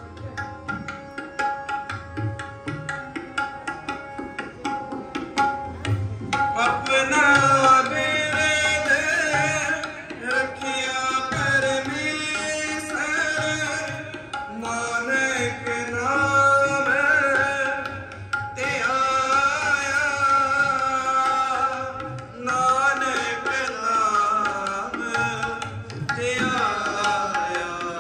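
Sikh kirtan: tabla and harmonium playing. A voice joins singing about six seconds in and carries on in phrases broken by short pauses.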